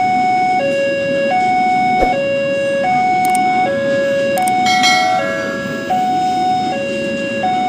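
A railway level-crossing warning alarm sounds two alternating tones, low and high, each held about three quarters of a second, over the steady rumble of a passenger train running past on the rails. There is one sharp clack about two seconds in.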